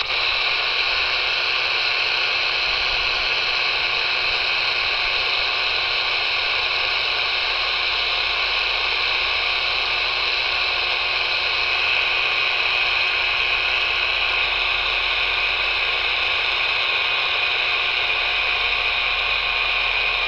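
Steady shortwave static hiss from a Tecsun portable radio's small speaker, tuned to 9580 kHz. No programme comes through: Radio Australia is off the air on that frequency, so only band noise is heard.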